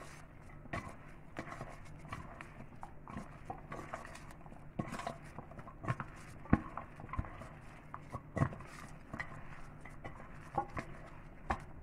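A hand squeezing and mixing mashed boiled potato with chopped onion, chilli and spices in a stainless-steel bowl: soft squishing with irregular sharp taps and clicks as fingers and mixture strike the steel, a few louder ones about halfway and two-thirds through.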